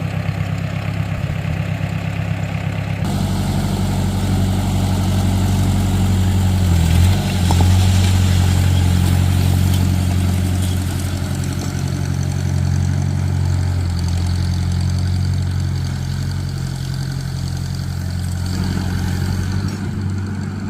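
Engine running steadily, getting fuller and a little louder about three seconds in.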